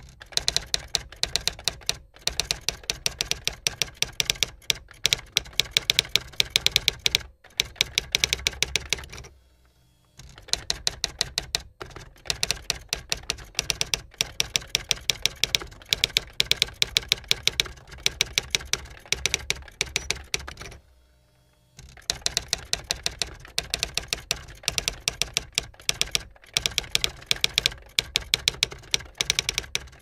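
Typewriter keys striking in rapid runs of many sharp clacks, broken by short pauses about ten seconds and twenty-one seconds in.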